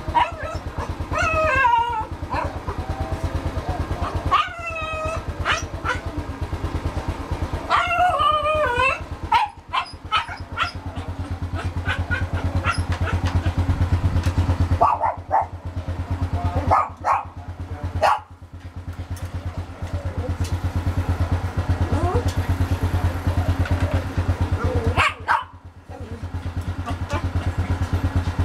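A small dog whining in wavering, high-pitched cries for the first nine seconds or so, then giving a few short barks through the rest, over the steady drone of an engine idling.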